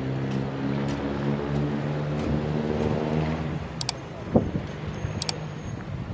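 A motor vehicle engine running steadily nearby, then fading out after about three and a half seconds, with scattered sharp clicks and a single thump about four seconds in.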